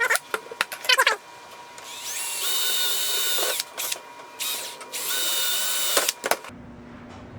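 Electric drill boring rivet holes through a copper sleeve on a patio umbrella's rib, in two runs of about a second and a half each. Each run starts with a rising whine that then holds steady, with a few short squeaky clicks before the first run.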